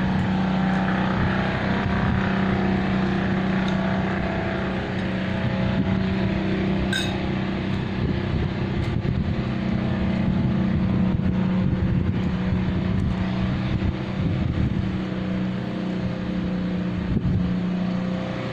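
A motor running steadily with a low, rough droning hum that holds level throughout. A brief high clink sounds once about seven seconds in.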